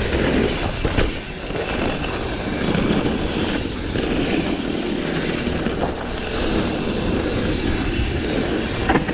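Wind rushing over the camera microphone and mountain bike tyres rolling over a dirt trail, a steady rumbling noise, with a knock from the bike about a second in and another near the end.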